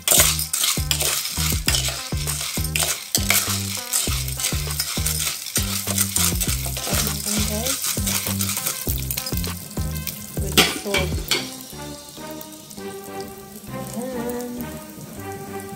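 Popcorn kernels stirred with a spoon in hot oil in a pot, sizzling and rattling against the metal, with a sharp knock about ten and a half seconds in. The sizzling and stirring fade after about eleven seconds, and background music with a steady bass beat plays under it all.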